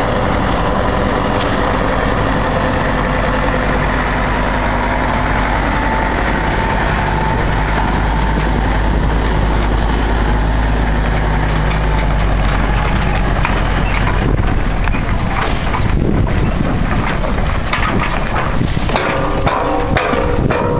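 Heavy truck's diesel engine idling steadily at close range. Rustling noise on the microphone comes over it in the last few seconds.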